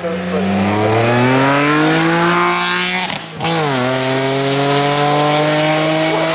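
Race car engine accelerating hard up a hill climb. It revs up through a gear, shifts about three seconds in with a brief cut in sound and a drop in pitch, then pulls again, rising more slowly in the next gear.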